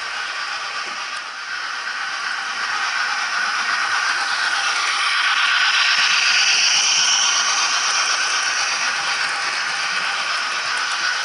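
Model steam locomotive running with DCC sound: the Hornby A4 Bittern's LokSound decoder plays steam sounds through its small speaker over the rattle of wheels on the track. A louder hiss swells in from about four seconds in and fades again a few seconds later.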